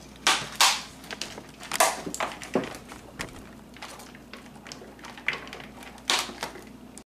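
A thin plastic deli container crackling and knocking as chopped onion is shaken out of it into a plastic mixing bowl. A handful of sharp crinkles and taps stand out among lighter ticks.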